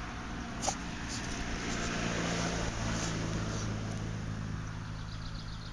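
French bulldog snuffling with its nose down in loose garden soil, over the steady hum of an engine running throughout.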